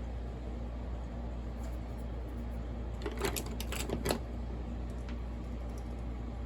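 A few light clicks and taps from tools and chainsaw engine parts being handled, bunched about three to four seconds in, over a steady low hum.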